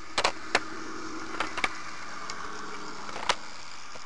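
H0-scale model train running past close by: a steady running rumble with a motor hum that fades after the two F45 locomotives go by, and a few sharp, uneven clicks of wheels crossing the sectional track's rail joints.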